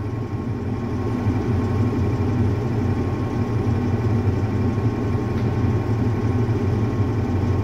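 Caterpillar D8 crawler dozer's diesel engine idling steadily at about 700 rpm, heard from inside the cab.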